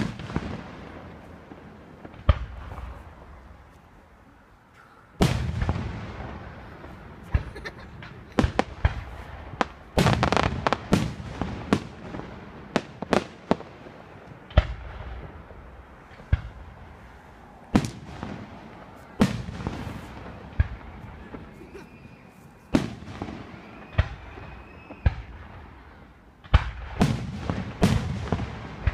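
Aerial fireworks shells bursting overhead: repeated sharp bangs with echoing tails, spread out at first, then a quick flurry about ten seconds in and another near the end.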